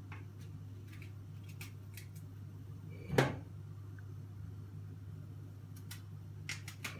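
A steady low hum, with a few faint ticks and one sharp knock about three seconds in.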